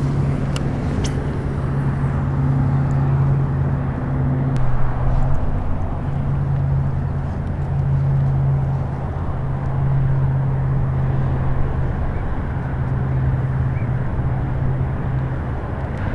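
Open-water ambience of wind and water around the wader, under a steady low hum that drops out briefly a few times. A few faint clicks in the first few seconds.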